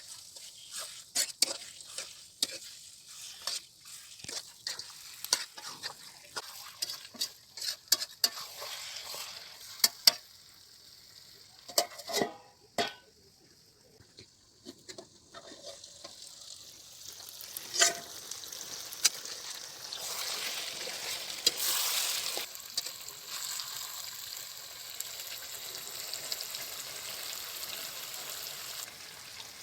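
A spatula stirring chicken in a frying pan, with many quick clicks and scrapes against the metal, then steady sizzling of the frying food from about halfway on, loudest a few seconds later.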